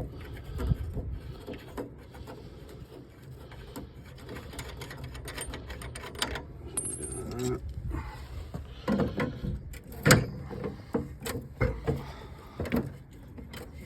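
Spanner work on a combi boiler's fittings: scattered metal clinks and scrapes as nuts are unscrewed, with a few sharper knocks in the last few seconds, the loudest about ten seconds in.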